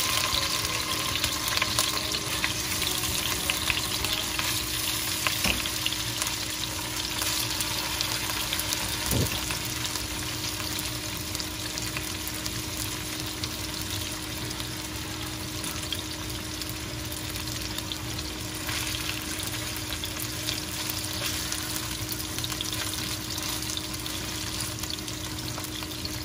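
Turmeric-and-salt-rubbed rohu fish pieces sizzling in hot oil in a nonstick frying pan, with more pieces being laid in. The sizzle is loudest in the first few seconds, then settles to a steady hiss.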